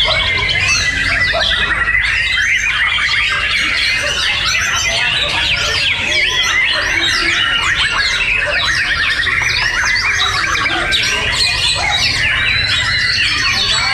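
Many caged white-rumped shamas (murai batu) singing at once in competition: a dense, unbroken chorus of fast, overlapping whistled notes and trills.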